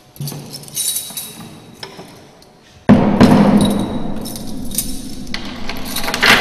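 A few light metallic clinks, then about three seconds in a sudden heavy metal clang that rings on and slowly fades. Another clang comes about two seconds later and again near the end.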